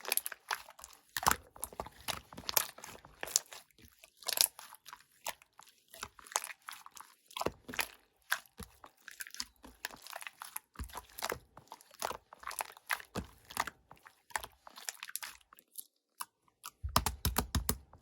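Pink pearl slime being squeezed and pressed by hand, making dense, irregular wet clicks and pops, with a few heavier low thuds near the end.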